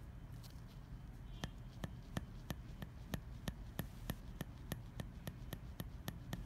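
Manual permanent-makeup hand tool with a 14-pin flex flat shading needle tapping pigment into a practice skin: light, sharp clicks at a steady rate of about three a second, starting about a second and a half in. This is hand-method stippling for powder or ombre brows.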